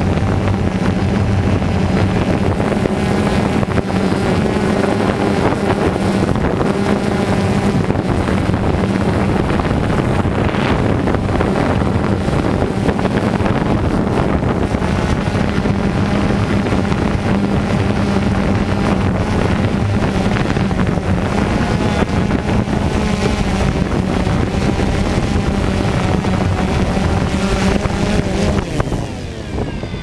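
DJI Phantom 2 quadcopter's four motors and propellers buzzing steadily in flight, heard up close from the camera slung under the drone. The steady hum breaks off near the end.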